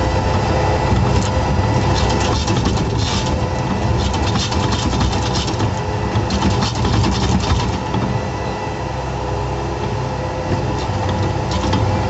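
Bobcat S160 skid steer's diesel engine running steadily, with its hopper broom sweeper brushing through loose gravel, which adds an irregular gritty crackle over the engine hum.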